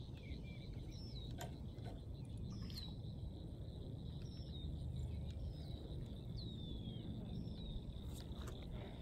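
Outdoor evening ambience: birds give repeated short falling whistles over a steady high insect trill, with a low rumble and a few faint clicks.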